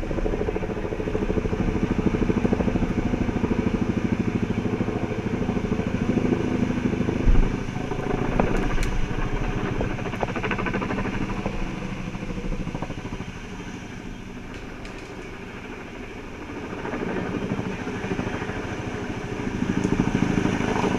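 Helicopter rotor chop overhead, a loud, steady beating that eases off in the middle and grows again near the end. A brief low thump comes about seven seconds in.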